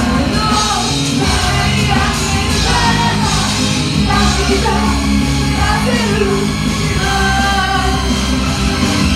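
A woman singing loudly into a microphone over amplified rock-style music played through the club's PA, live in the room.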